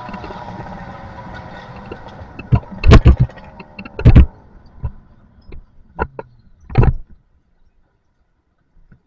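Two-stroke engine with a 52 mm single-ring piston winding down, its pitch falling steadily over several seconds. A few loud thumps and knocks cut in, and the sound drops to near silence about seven seconds in.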